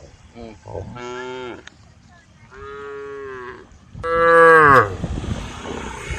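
Cows mooing: three long, drawn-out moos, the third the loudest and sliding down in pitch as it ends. A rushing noise follows near the end.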